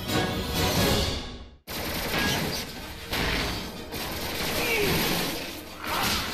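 Theme music over the title card dies away to a moment of silence about one and a half seconds in. Then a dense, noisy run of cartoon action sound effects follows as the attack scene begins.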